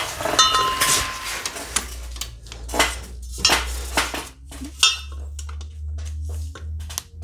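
Steel hand tools clinking and knocking as sockets, an extension and a torque wrench are swapped and fitted onto a bolt, with a couple of short ringing metallic clanks. A low steady hum sits underneath from about two seconds in.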